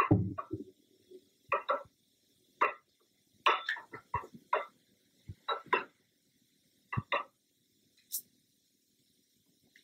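Hand-turned etching press running its steel roller along the bed, giving irregular clicks and knocks from its gearing as the star wheel is cranked, with a low thud as it starts.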